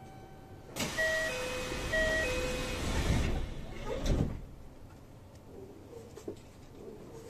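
Door-closing chime aboard a Kintetsu 3220 series train: a two-note ding-dong sounded twice over a sudden rush of noise as the sliding doors start to move, then a thud about four seconds in as they shut before departure.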